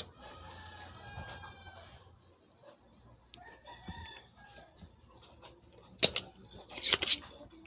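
A rooster crows twice in the first half. Near the end a spring-loaded desoldering pump snaps twice, loud and sharp, as it sucks melted solder off the IC's pins.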